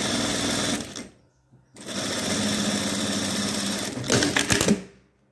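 Industrial sewing machine stitching a folded strip of bias tape. It runs for about a second, stops briefly, then runs steadily for about two more seconds and ends with a few clicks.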